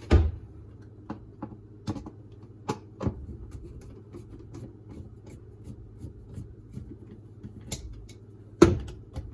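Scattered clicks and knocks of a Torx screwdriver and hard plastic dishwasher filter parts being handled as a screw is taken out, with two louder knocks, one at the very start and one near the end.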